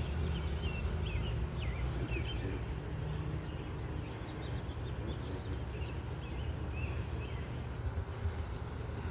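Honey bees buzzing in a steady low hum around an opened hive. A small bird chirps several times in the first few seconds and again a few seconds later.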